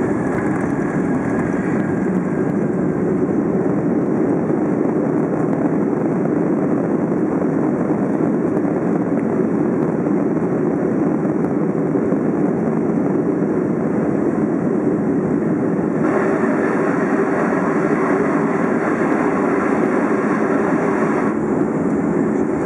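Steady cabin noise inside a Boeing 757 rolling out on the runway after touchdown. It is an even rumble of engines, airflow and wheels. About sixteen seconds in the noise turns brighter and hissier for about five seconds, then settles back.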